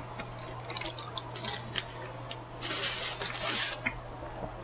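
A person chewing and lip-smacking with their mouth close to the microphone: a run of short wet clicks and smacks, with a longer stretch of hissy chewing noise about halfway through.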